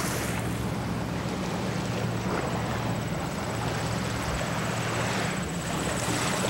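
Steady low drone of a distant engine running at an even pitch, with a faint hiss over it.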